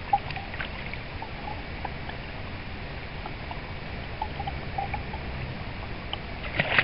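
Stream water flowing and lapping with a low steady rumble and small scattered ticks and drips, and a brief splash near the end as the trout is handled at the net.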